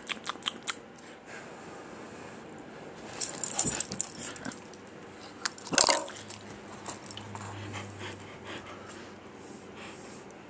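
Husky making small whimpering and mouth noises close by, with scattered clicks and two louder rustling bursts, one about three and a half seconds in and one about six seconds in.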